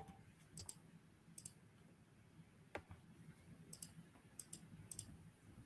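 A handful of faint, sharp clicks at irregular intervals, some in quick pairs, over near silence.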